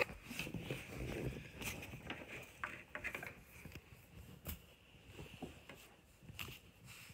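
Faint rustling with scattered small clicks and knocks, busier in the first couple of seconds and sparser after.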